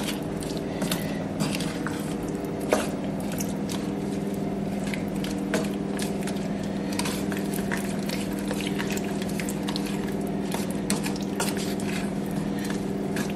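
Frozen raspberries in a little water heating in a small saucepan, giving off irregular small pops and clicks as they thaw toward the boil, over a steady low hum.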